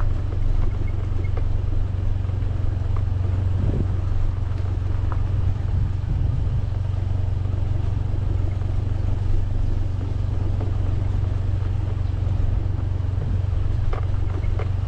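Motorcycle engine running steadily at low speed, a constant low drone.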